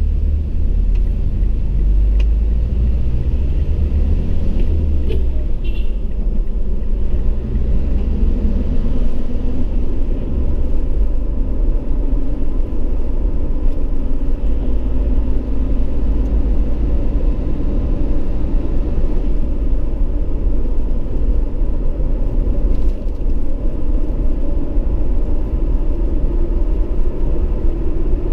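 Steady low rumble of engine and road noise inside the cabin of a Mitsubishi Triton HDX pickup under way.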